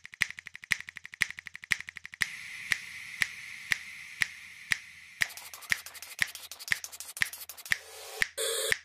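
A steady rhythmic snapping beat: a sharp snap about twice a second with lighter clicks between. A hiss runs underneath for a few seconds in the middle, and near the end there is a short burst of noise.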